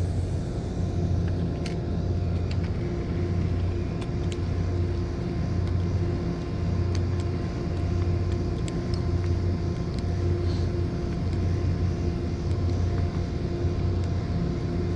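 Steady low drone of machinery running at constant speed, with a few faint clicks over it.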